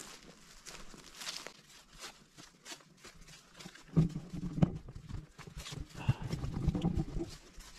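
Footsteps of a person walking down a hiking trail, faint and irregular at first, then louder and heavier from about halfway through.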